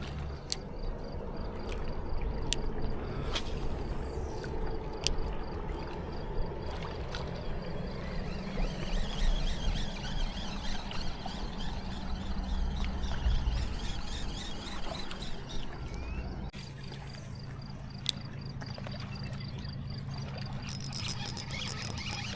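River water splashing and trickling, with scattered sharp clicks and knocks.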